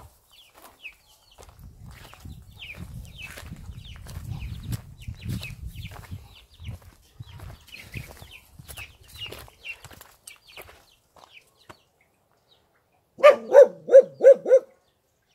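A dog barks about five times in quick succession near the end. Before that there are several seconds of faint, short bird calls.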